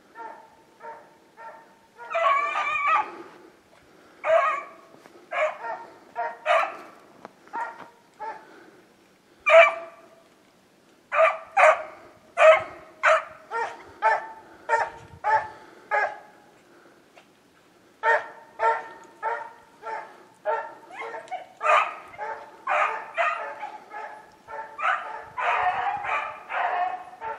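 Beagles baying while trailing a rabbit: a long run of short, repeated barks, about one or two a second, with a short pause midway and calls crowding together near the end.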